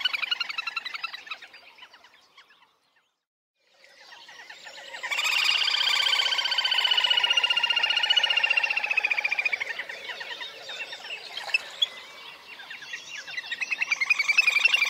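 Little grebe calling in rapid trills. The trilling fades out about two seconds in and stops for a second or so. It then swells back and runs loud for several seconds, dips, and builds again near the end.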